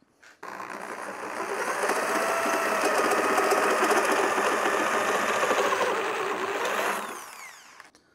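Electric drill running under load as it bores a hole through the car's front body panel for a rivnut, a steady whining drone that starts about half a second in and winds down near the end.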